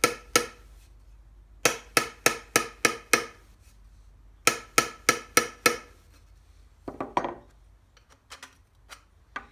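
Small hammer tapping the end of a steel steering column tube, in three quick runs of strikes about three a second, each strike with a short metallic ring. The blows peen the rounded-out bearing seat in the tube to shrink it so the column bearing fits tight. Softer knocks and clicks near the end as the tube is handled.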